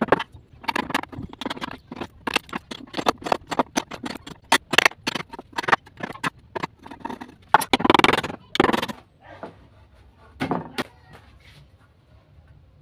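Wooden boards knocked and clattering as they are handled: many sharp knocks in quick, irregular succession that thin out and stop near the end.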